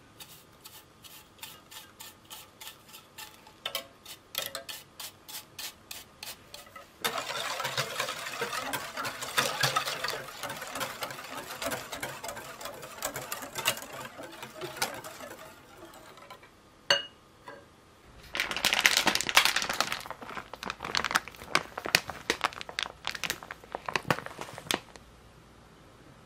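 A flat hand grater rasping over mikan peel in short, even strokes, about two to three a second. Then a wire whisk beats egg-yolk batter in a glass bowl: fast, continuous scraping and clinking against the glass. The whisking stops briefly after about sixteen seconds, with a couple of single clicks, then starts again for several seconds.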